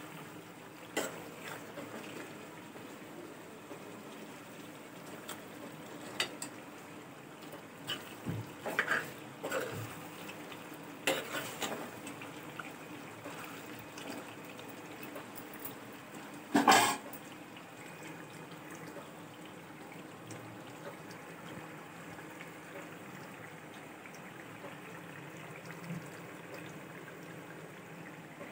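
Chicken salan simmering in a steel pot on a gas stove, with a steel ladle stirring it and now and then scraping and knocking against the pot. The loudest knock comes a little past halfway.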